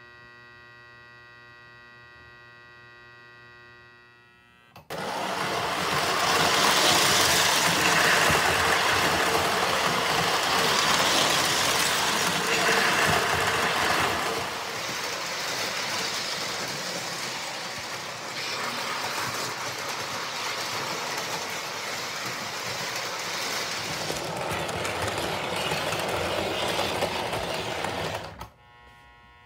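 A steady electric hum for the first few seconds, then a Lionel O-gauge toy train running on three-rail tinplate track: loud running noise of the wheels and motor from about five seconds in, loudest over the next several seconds and somewhat quieter later, cutting off suddenly near the end as the hum returns.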